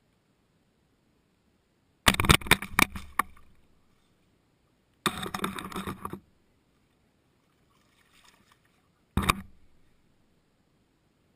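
Handling noise from the camera being moved: three short bursts of knocks and rustling, about two seconds in, five seconds in and near the end, with near silence between.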